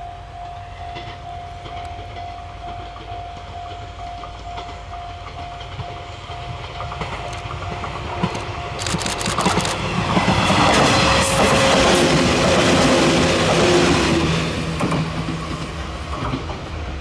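Electric train approaching and running past close by, loudest from about ten to fifteen seconds in, with wheels clattering over the rail joints and a steady motor hum.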